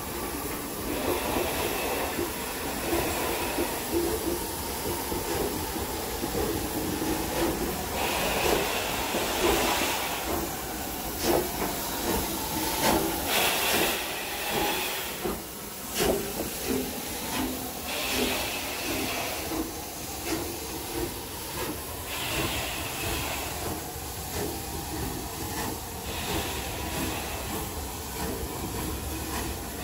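Steam locomotive moving at low speed, hissing steam from its cylinders in repeated bursts every few seconds. Its coaches rumble past behind it, the wheels clacking over the rail joints.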